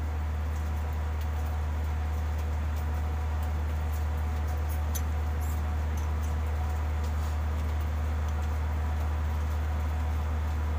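A steady low hum, with scattered faint metallic clicks from a screwdriver and small wrench working on the injector fittings of an open common-rail diesel cylinder head.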